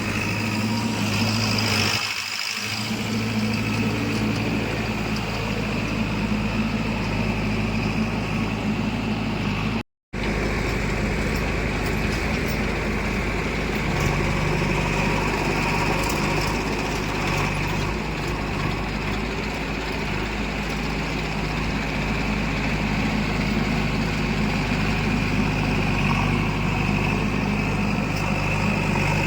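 Heavy machinery diesel engine running steadily at a constant speed, with a brief total dropout about ten seconds in.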